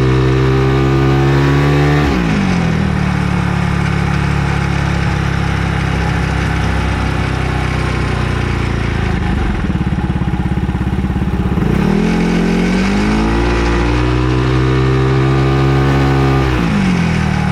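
Motor scooter engine idling, revved twice and held at steady higher revs for a few seconds each time: near the start, and again from about two thirds of the way in before dropping back to idle.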